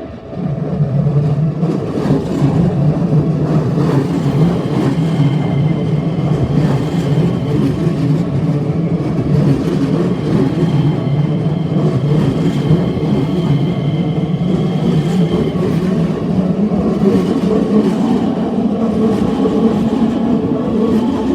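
A train rolling slowly through a sharp 25 km/h curve. Its rumble starts abruptly about half a second in and then runs steadily, with fine clicks and faint high steady tones coming and going above it.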